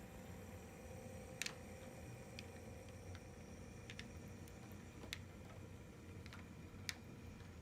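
HO scale model train moving slowly on the layout: a faint steady hum with scattered light clicks, about seven of them, spaced irregularly.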